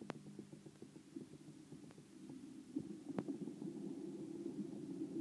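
PIKO model VT 643 'Talent' railcar running along the layout track, its motor humming and wheels rumbling on the rails, getting louder as it comes close. A few sharp clicks stand out over the rumble.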